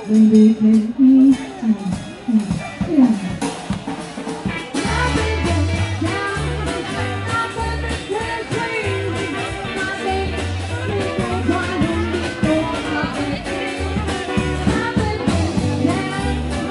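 Upbeat jazz-style dance music with drums and a bass line stepping from note to note. The full band comes in about five seconds in, after a few loose pitched sounds.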